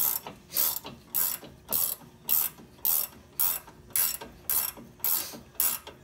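Ratcheting wrench clicking in steady back-and-forth strokes, about two a second, as it runs the 18 mm caliper bracket bolts down on a GMC Jimmy's front brake.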